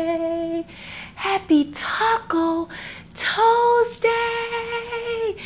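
A woman singing a short tune in long held notes, the last one held for over a second near the end.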